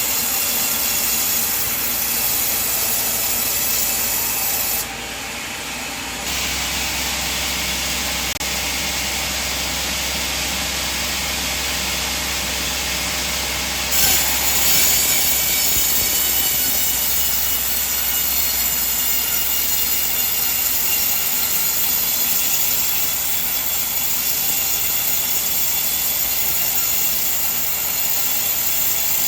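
Band sawmill running and cutting through a coconut log: a steady, continuous saw noise over machine hum. It dips briefly about five seconds in, a deeper hum joins from about six to fifteen seconds, and there is a short louder surge near fourteen seconds.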